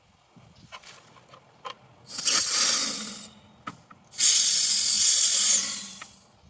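Two bursts of compressed nitrogen hissing through the refrigerator's refrigerant tubing as the nitrogen valve is opened: the first short, the second longer and fading out at its end.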